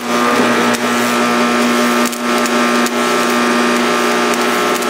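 Stick welding with nickel rod on cast iron: the electric arc is crackling and sizzling steadily over a constant hum, with a few sharp pops.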